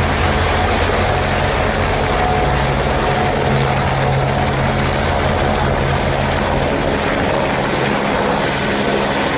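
A helicopter running: a steady noise with a low hum underneath, the hum weakening near the end.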